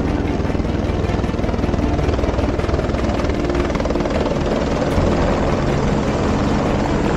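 Helicopter running on the ground: its turbine and main rotor make a steady drone with a few held low tones.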